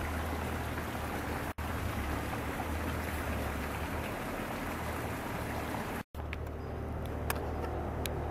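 Steady outdoor background noise with a low rumble underneath. It cuts out completely for a moment twice, and a few faint short high ticks follow the second break.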